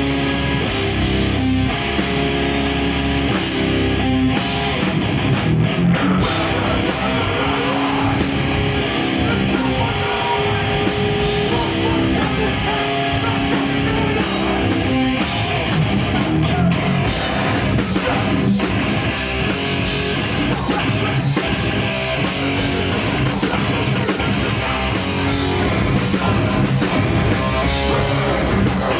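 A metallic hardcore band playing live and loud: distorted electric guitars, bass and a drum kit.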